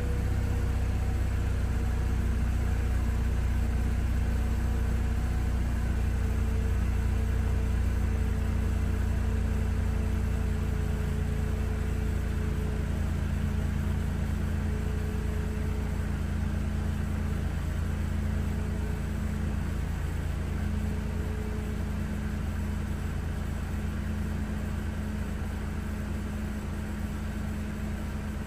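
Supercharged four-cylinder engine of a 2004 Mercedes-Benz C230 Kompressor idling steadily after a cold start, heard at the exhaust tailpipe. The idle grows slowly a little quieter over the second half.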